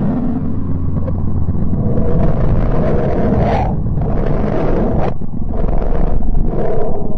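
Sonified space recording presented as the sound of the planet Mercury, made from its radio emissions turned into audio. A loud, low rumble runs throughout, with swells of rushing, roaring noise that build and cut off suddenly several times, giving the impression of something melting in the heat.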